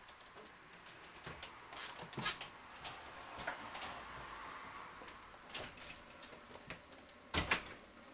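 Scattered small knocks and shuffling as someone comes in through a house door, then the door shut with two loud knocks about seven and a half seconds in.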